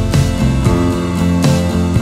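Background music: acoustic guitar strummed and plucked to a steady beat.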